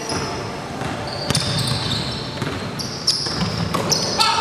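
Basketball game on a hardwood gym floor: sneakers squeaking in repeated short high squeals and the ball bouncing with sharp knocks, echoing in a large hall.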